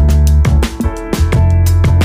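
Electronic background music with a heavy, sustained bass line and a steady drum beat.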